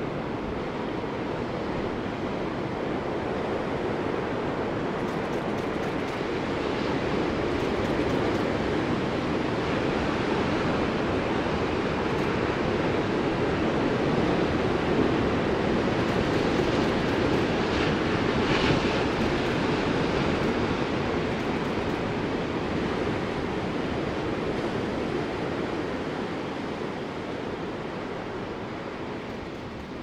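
Ocean surf breaking and washing up the beach: a steady rushing that swells to its loudest midway and eases off near the end.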